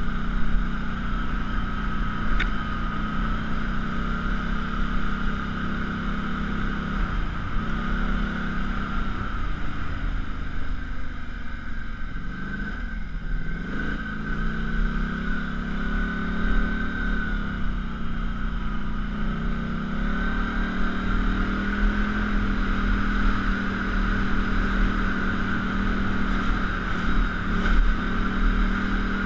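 ATV engine running steadily under way on a dirt trail. The revs drop briefly about a quarter of the way in and more deeply near the middle as the rider eases off, then climb back up.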